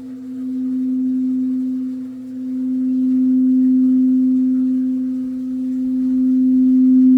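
Singing bowl sounding one sustained, pure, low tone, as when its rim is rubbed. The tone swells and eases in slow waves, about three times.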